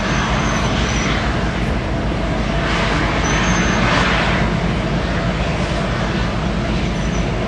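A lash-up of Union Pacific diesel-electric locomotives running as they move slowly past, a steady low diesel rumble. A hissing rush swells up and fades away in the middle.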